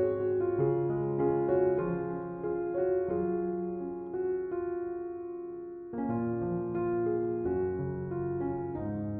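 Gentle background piano music: slow notes and chords that die away into a softer stretch, then a fresh chord about six seconds in.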